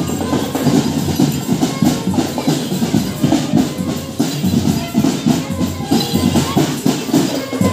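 Marching drum band playing a dense, steady percussion rhythm.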